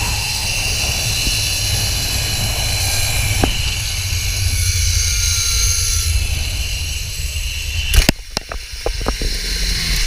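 Zipline trolley running fast along a steel cable, a steady whirring hiss mixed with wind rushing over the microphone. About eight seconds in there is a loud thump, then several knocks, as the ride stops at the landing platform.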